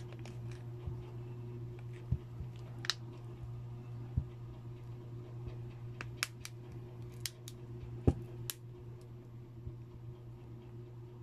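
Scattered sharp clicks and light taps as fingers press the edges of a Vivo Y91 smartphone's newly fitted screen down into its plastic frame, over a steady low hum.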